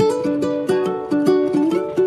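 Background music: a light tune of plucked strings, several notes a second, each note ringing briefly and fading.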